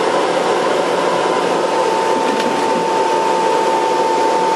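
Steady rush of forced air blowing into a bloomery furnace, with a steady high whistle of the air through the tuyere pipes.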